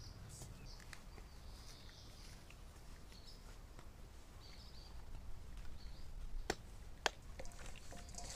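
Faint short bird calls in the background. From about five seconds in, hands work raw chicken wings in a steel bowl, with two sharp clicks, the loudest sounds here.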